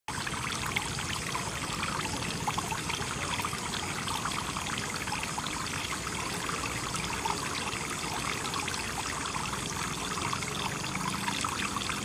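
Many thin streams of water falling from the holes of an upturned plastic flower pot and splashing into a plastic basin below: a steady patter and trickle of a small homemade fountain.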